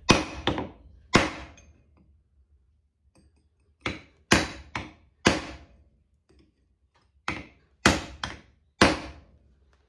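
Hammer striking a chisel held in the seam of a light ballast resting on a concrete paver: about a dozen sharp blows in three groups with short pauses between them. The blows are driving the ballast's casing apart at its seam.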